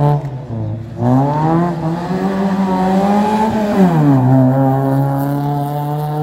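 A car engine revving under acceleration. Its pitch climbs for about three seconds, drops sharply about four seconds in, and then holds a steady lower note.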